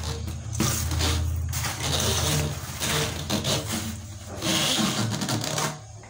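Corrugated plastic washing-machine drain hose and a wire spring hose clamp being handled on cardboard: a run of rubbing, scraping strokes of about a second each as the clamp is worked over the hose end, over a steady low hum.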